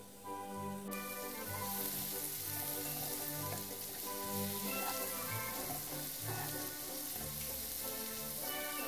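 Chopped onion sizzling in hot oil in a pan while it is stirred with a plastic spatula. The sizzle sets in about a second in and holds steady, over background music.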